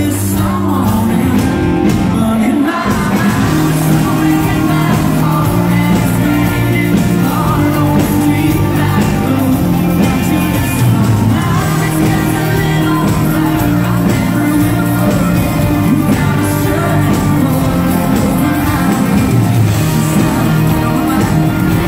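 Live band playing a country-rock song through a concert PA: a male lead vocal sung over electric guitar, bass and drums, loud and steady.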